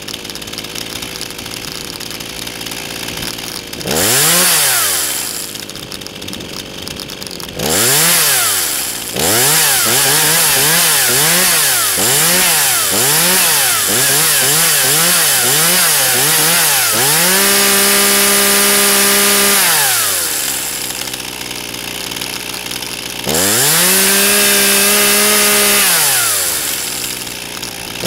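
Zenoah G3500P two-stroke chainsaw engine idling and being revved: a single blip about four seconds in and another near eight seconds, then a run of quick blips about two a second. Near seventeen seconds it is held at full revs for about two and a half seconds, drops back to idle, and is held at full revs again for about two and a half seconds before settling.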